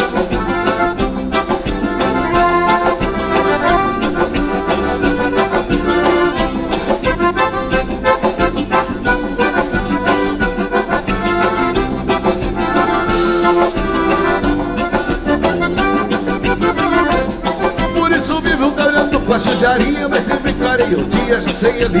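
Live band playing an instrumental break led by two accordions, a piano accordion and a diatonic button accordion, over electric guitar and drums with a steady beat.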